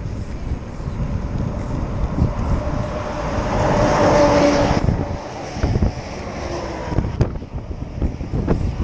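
Wind buffeting the microphone on a moving bike, with a motor vehicle passing close by. The vehicle swells to the loudest point about four seconds in, then cuts off abruptly.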